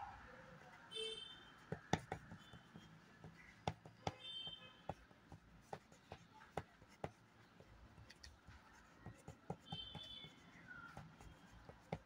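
Graphite pencil tapping and scribbling short strokes on paper, heard as a faint, irregular run of small clicks as tiny leaf marks are dabbed in.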